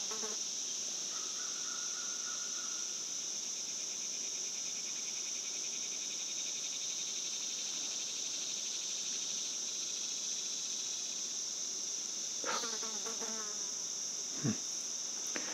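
Steady, high-pitched chorus of insects in late-summer woods, with a faint fast pulsing in the middle. Near the end come a brief sound and a short soft knock.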